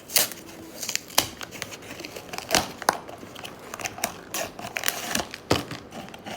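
Blind-box packaging being opened by hand: plastic and foil wrapping crinkling and tearing, with irregular sharp crackles and snaps.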